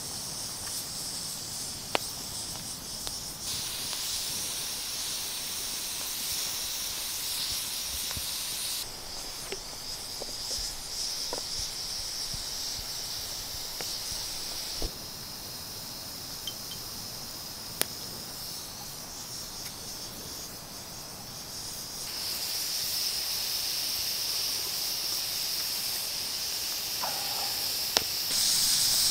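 Steam hissing steadily, its level stepping up and down several times, with a few sharp clicks in between.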